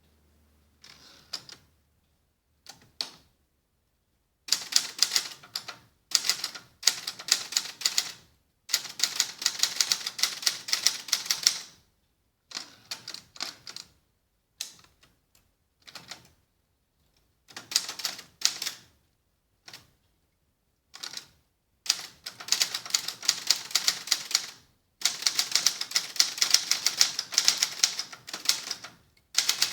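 Adler Gabriele 25 manual typewriter being typed on with its cover off, typebars striking the platen in quick runs of clacks, several a second, broken by short pauses.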